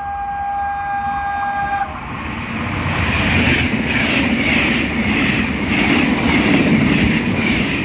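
Trenitalia regional express train passing through the station. Its horn sounds one steady blast that cuts off about two seconds in, then the coaches rush past with a loud, regular clatter of wheels about twice a second.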